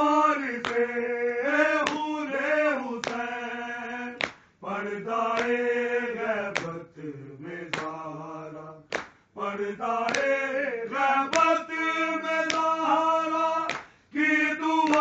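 Men chanting a noha (Urdu lament for Karbala) together, the sung lines breaking off briefly about four and a half, nine and fourteen seconds in. Sharp beats of matam, hands striking chests, keep time about once a second under the chant.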